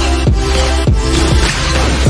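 Background music with a heavy bass line and repeated falling pitch slides.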